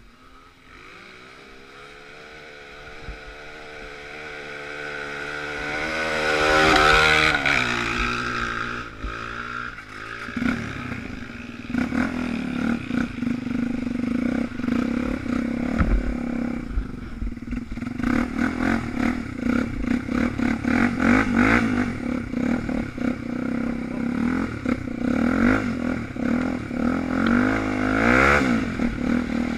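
Off-road motorcycle engines. One engine climbs in pitch and loudness to a peak about seven seconds in, then drops away. From about ten seconds on, an engine runs steadily under way, with clatter from riding over rough ground.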